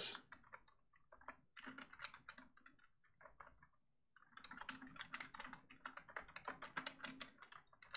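Faint typing on a computer keyboard: a short run of keystrokes, a pause of about a second and a half, then a longer run.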